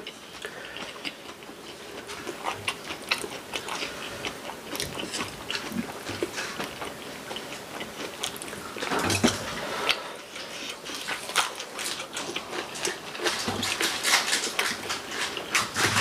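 Close-miked eating sounds: chewing and crunching a mouthful of bean-sprout bulgogi, a run of short wet clicks and crunches, busier near the end.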